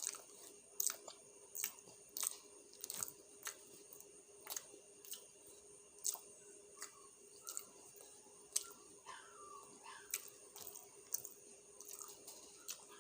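A person chewing a hamburger close to the microphone: wet, clicking mouth sounds at irregular intervals, about one or two a second.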